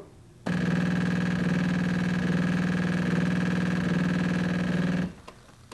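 Jura E8 super-automatic espresso machine's pump humming steadily as it pushes water through the ground coffee, extracting an espresso shot into milk foam for a macchiato. It starts about half a second in and cuts off abruptly about five seconds in.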